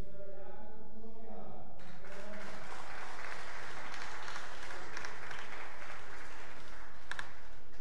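A voice speaking briefly, then an audience applauding for the rest of the time.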